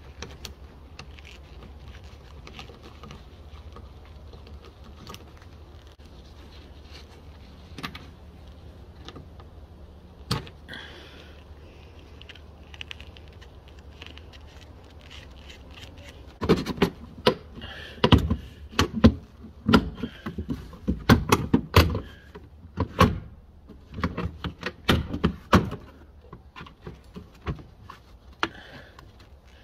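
Hand tools working on a car liftgate's trim and hinge area. A few scattered clicks come first, then from a little past the middle a long, irregular run of sharp clicks and knocks, over a faint steady low hum.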